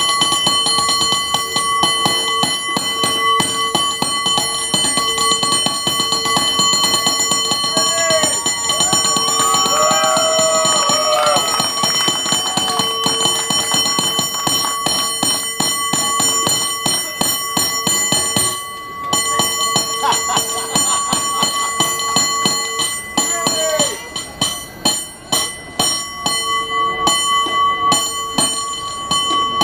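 San Francisco cable car bell rung in fast, continuous rhythmic patterns, its clang ringing on between strokes. Near the end the rhythm breaks into choppier, spaced groups of strokes. Shouts from the crowd come about a third of the way in.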